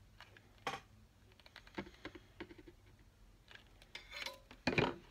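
Scattered light clicks, taps and rustles of a hot glue gun and ribbon being handled while ribbon is glued along the edge of a burlap pillow, with one louder knock near the end.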